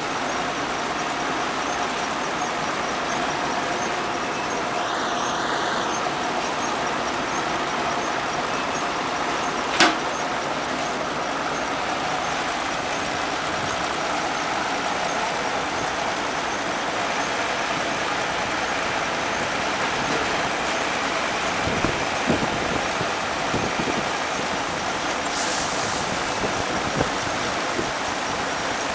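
Vistula combine harvester running at work, a steady mechanical drone with a faint steady whine through it. There is one sharp click about ten seconds in and a few low knocks in the last third.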